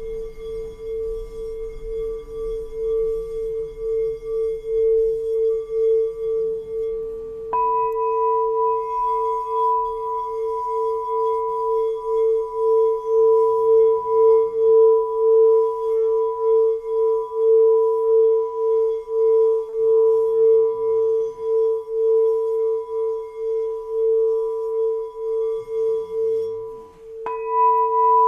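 Singing bowl ringing with one steady, pulsing tone and a fainter higher overtone. It is struck again about seven seconds in and once more near the end, each strike bringing the higher tone up.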